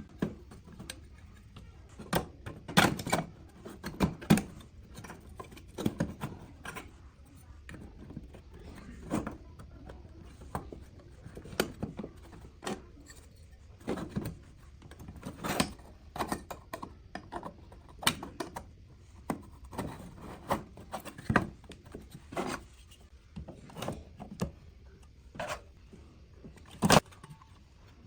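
Irregular clicks and light knocks of small hard parts and hand tools being handled and set down while an old induction cooker is worked on, over a low steady hum.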